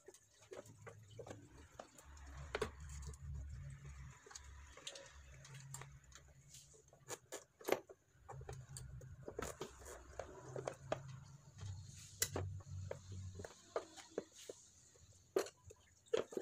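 Irregular clicks, taps and rustles of hands handling the plastic parts and rubber hoses under a motorcycle's seat, with a few sharper knocks.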